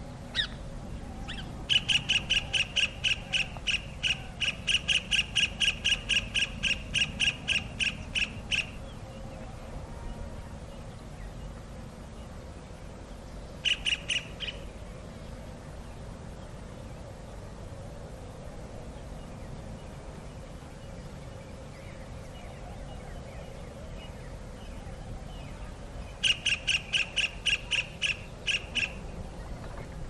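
Kingfisher calling: a fast run of sharp, high, evenly spaced notes, about five a second, lasting some seven seconds, then a brief burst of a few notes midway and another run of about three seconds near the end.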